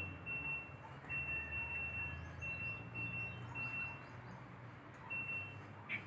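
High-pitched electronic beep sounding again and again in stretches of about half a second to a second, with brief breaks and a longer pause about four seconds in.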